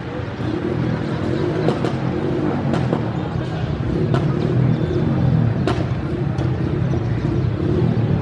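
Diesel-electric locomotive engine running, a steady low rumble that slowly grows louder, with a few sharp clicks and knocks over it.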